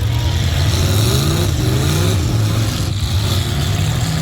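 Demolition derby truck engines running loud, revving with several rising sweeps in pitch about one to two seconds in.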